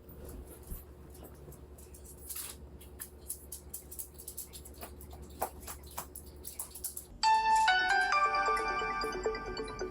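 A faint steady hum with scattered small clicks, then about seven seconds in a phone's incoming-call ringtone starts: a loud electronic melody of short stepping notes.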